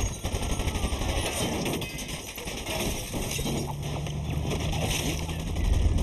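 Sea-battle sound mix: rapid bursts of machine-gun and small-arms fire with men shouting over a low rumble. A steady low hum comes in about three seconds in.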